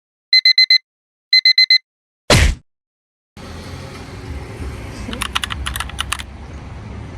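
Two quick runs of four short electronic beeps, then a single sharp thump, followed by steady background noise with a brief cluster of clicks.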